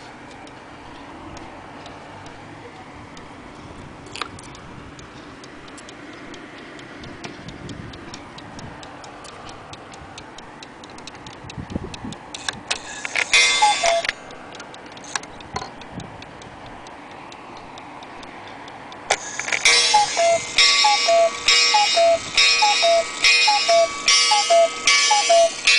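Weight-driven cuckoo clock ticking softly. After its minute hand is turned by hand, a short burst of notes sounds about halfway. Near the end the clock starts a loud tune of repeating notes.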